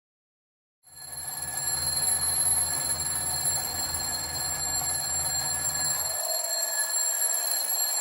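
Red twin-bell alarm clock ringing steadily, starting suddenly about a second in.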